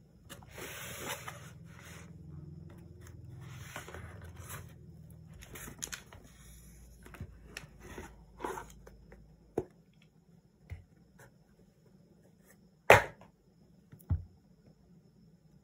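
Cardboard shipping box rustling and scraping as the boxed phone is worked out of it, with a few light taps. Near the end, a sharp knock of the phone box against the wooden tabletop, then a smaller one about a second later.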